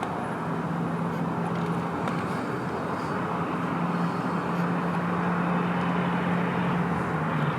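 Steady background rush of distant road traffic with a constant low hum, which fades briefly about midway and then returns.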